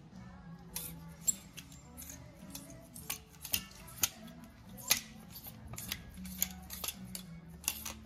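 Plastic clothes hangers clicking and scraping along a metal rack rail as shirts are pushed aside one by one, in quick, irregular clicks.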